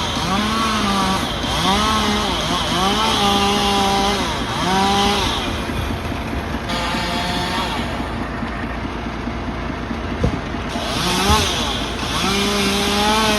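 Powered saw of a tree-cutting machine running, its pitch dipping and rising again over and over, with a hiss that comes and goes.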